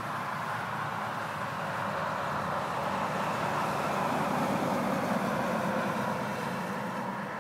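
Traffic noise from passing vehicles: a steady road rumble that swells to a peak about four to five seconds in, then fades.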